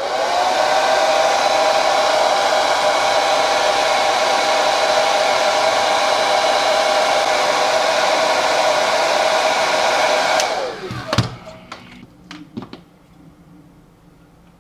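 Hand-held hair dryer blowing on a smartwatch. Its motor spins up, runs steadily for about ten seconds, then is switched off and winds down. A few light clicks follow as the watch is handled.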